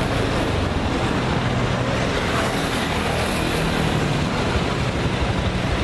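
Steady road traffic noise with a low rumble from passing vehicles.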